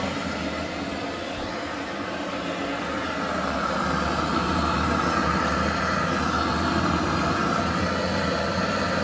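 Pakora batter frying in hot oil in a large karahi: a steady sizzle that grows louder about three seconds in as more batter goes into the oil, over a low steady rumble.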